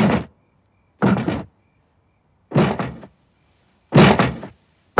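Four loud thuds or knocks, spaced about a second apart, each dying away within half a second.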